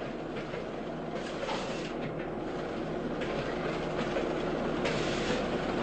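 Steady rumble and hum of factory machinery, with a few faint clicks.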